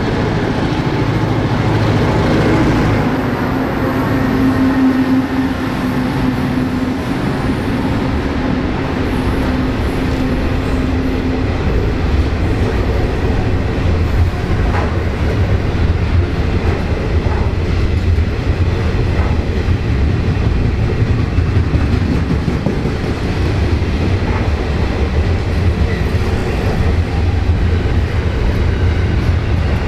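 Victorian Railways X-class diesel locomotive X31, with its EMD 16-567E engine, and G-class G515 passing on a container freight train. Their steady engine note fades over the first dozen seconds, then the container wagons roll past with a steady low wheel rumble on the rails.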